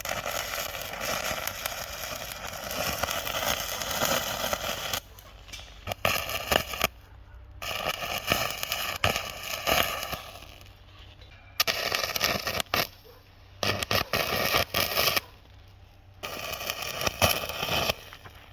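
Angle grinder working over welded steel on a gate, a harsh crackling, scraping grind that starts and stops several times in bursts of one to five seconds: the welds being ground down smooth.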